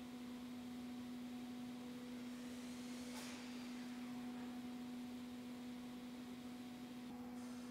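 Spindle moulder with a power feeder running at steady speed: a steady motor hum, with a brief rushing noise about three seconds in.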